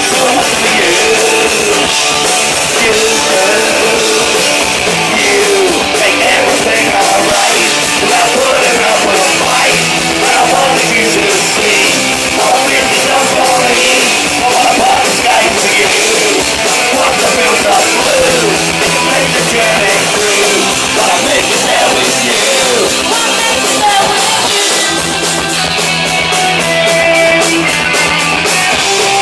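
Punk rock band playing live at full volume: electric guitar through a valve amp and a drum kit with crashing cymbals.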